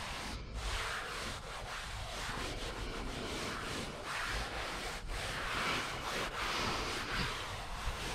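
Hands rubbing and smoothing anthracite four-way stretch carpet down onto a plywood panel, a rough brushing hiss that swells and fades with each stroke.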